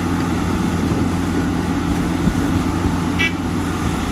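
Steady engine-like rumble with a low hum, with one short high beep about three seconds in.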